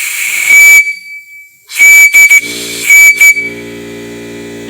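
WABCO (Westinghouse Air Brake Company) whistle on an Imperial valve blown in three short blasts, each a shrill single note over the rush of the valve opening. A steady mechanical hum sets in after the last blast.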